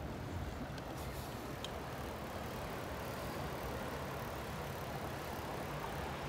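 Steady rushing noise of a bicycle ride on a paved path: wind on the microphone and tyres rolling, with a couple of faint ticks about a second in.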